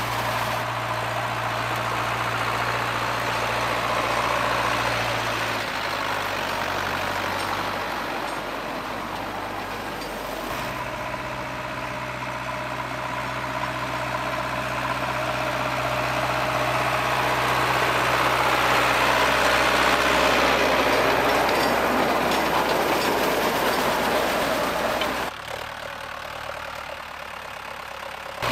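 Tractor engine running steadily as it drives a manure spreader across a field, with a rushing noise from the spreader throwing manure over it. The engine note shifts a couple of times, and the sound drops abruptly to a quieter level for the last few seconds.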